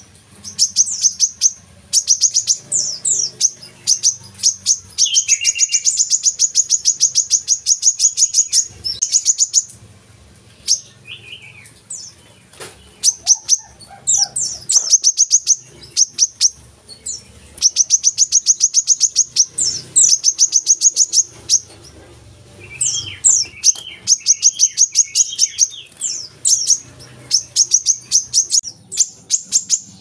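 Brown-throated sunbird (kolibri kelapa) singing a loud, very high chattering song. It comes in three long runs of rapid, evenly repeated notes lasting several seconds each, with quick sweeping chips and short pauses between them.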